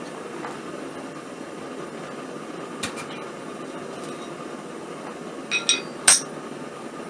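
Steady roar of a double-burner gas forge, with sharp ringing clinks of steel tools and stock over it: two quick clinks about three seconds in, two more at about five and a half seconds, then a louder clang just after six seconds.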